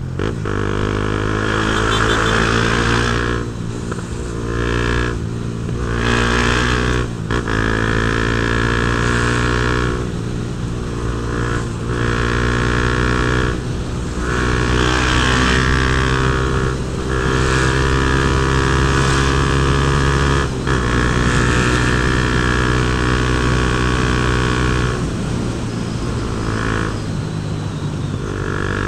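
Honda CB Twister's single-cylinder 250 cc engine through an aftermarket Protork sport exhaust, pulling up through the gears while riding: the engine note climbs, then dips briefly at each gear change, about eight times.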